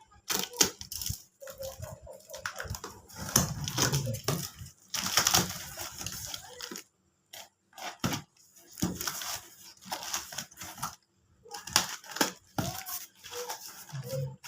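Packaging being handled and torn open: irregular rustling, tearing and crinkling bursts with short pauses between them.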